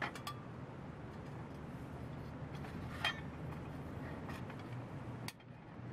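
A few light metallic clinks of a small utensil and hand against a stainless steel camping pot, the sharpest about three seconds in, over a steady low background hum.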